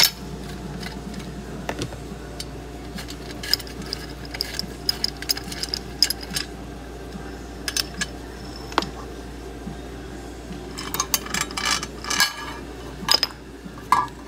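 Small metallic clicks and clinks of a screw being worked loose with a screwdriver and a sheet-metal dial plate being freed from a radio's tuning condenser, scattered throughout and busiest near the end.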